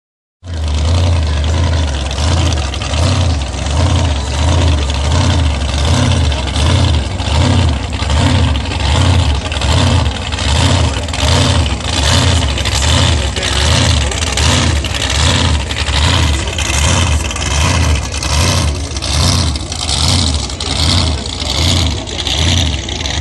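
Drag boat engine idling loudly, its deep note swelling and falling in an even pulse about once a second.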